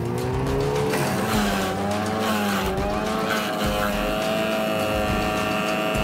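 Towed wood chipper's engine running hard, its pitch dipping and rising again several times as a pine tree is fed in and chipped.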